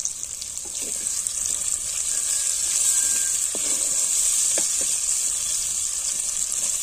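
Chopped onion and green chilli sizzling in hot mustard oil in a clay cooking pot, a steady hiss that grows louder over the first couple of seconds, with light scrapes as a wooden spatula stirs them.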